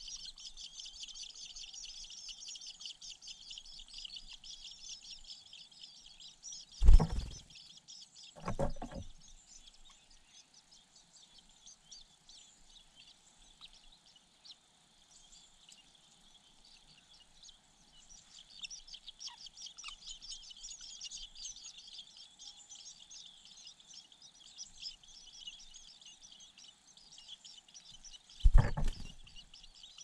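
Shrike nestlings begging, a dense rapid high-pitched chirping that fades for several seconds midway and then picks up again. Three short heavy thumps break in: two close together, about seven and nine seconds in, and one near the end.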